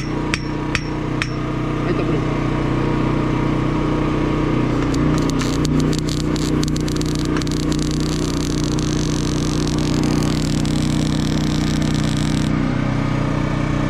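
A small engine runs steadily throughout. From about five seconds in until near the end, a wire-feed (MIG) welding arc crackles and hisses as a bead is laid on steel pipe; a few sharp metal ticks come in the first second or so.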